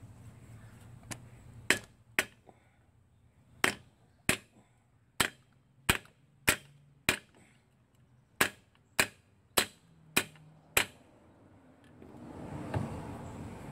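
Hammer driving knurled wheel studs into a brake drum: thirteen sharp blows in short runs of two to five, each run's blows about half a second apart. Rustling handling noise rises near the end.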